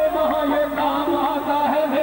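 Qawwali music: a voice singing an ornamented, gliding melody over instrumental accompaniment, continuous and steady in level.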